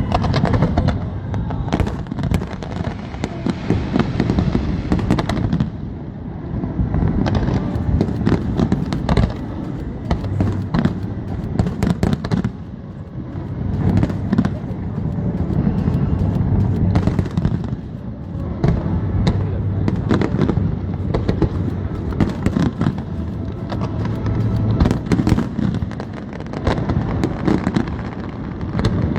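Aerial fireworks display: many sharp bangs and crackles in quick succession over a continuous low rumble of bursts.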